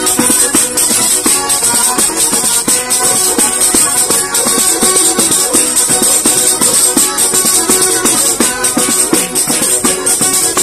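Live folk music: a small diatonic button accordion (organetto) playing a tune over tambourines shaken and struck in a steady rhythm.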